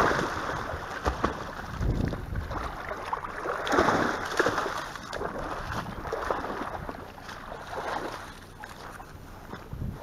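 Water splashing and sloshing in uneven surges as spaniels run through shallow lake water, with wind buffeting and rustling on a camera worn by one of the dogs.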